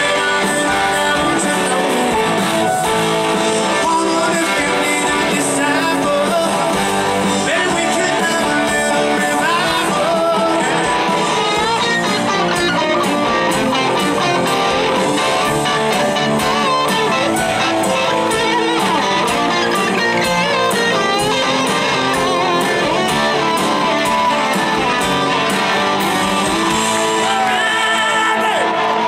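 Live southern rock band playing a song: distorted electric guitars, a drum kit keeping a steady beat, and a singer's voice over them.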